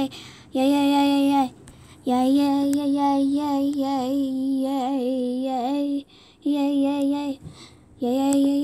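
A girl singing long held notes without clear words, in four phrases with short breaks between; the longest phrase, in the middle, wavers up and down in pitch.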